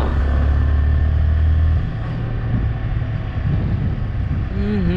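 Yamaha R15 V3 motorcycle being ridden: its 155 cc single-cylinder engine running under road and wind noise. A heavy low rumble eases off about two seconds in.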